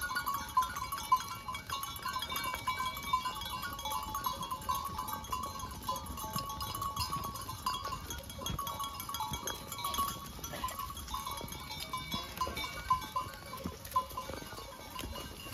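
A herd of goats on the move, bleating, with the rustle and crunch of many hooves on dry fallen leaves.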